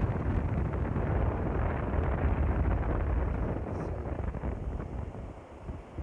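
Wind buffeting the microphone: a heavy, uneven rumble that eases briefly near the end.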